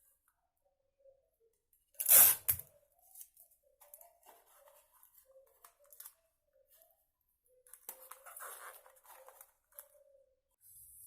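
Hand-crafting noises while building: a loud, short noisy burst about two seconds in, then scattered light clicks and rustles, and a longer rustling, scraping stretch near the end.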